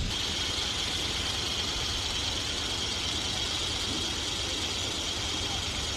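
A Joint Light Tactical Vehicle's diesel engine running steadily at low speed, under a steady high hiss.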